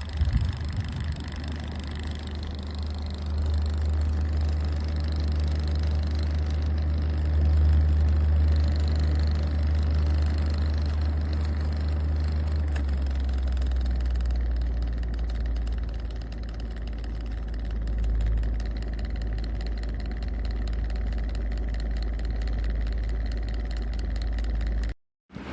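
Pelonis 20-inch five-blade box fan running, heard mostly as a steady deep rumble that drops lower about thirteen seconds in.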